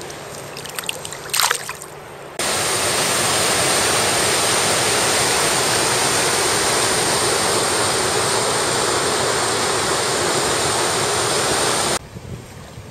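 Steady rush of a mountain river's flowing water, starting abruptly a couple of seconds in and cutting off abruptly near the end. Before it, a few brief rustles and knocks as a trout is handled in a landing net.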